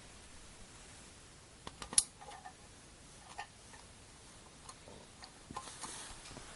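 Light clicks and handling noises from fiber-splicing hand work, with one sharp click about two seconds in and a brief rustle near the end.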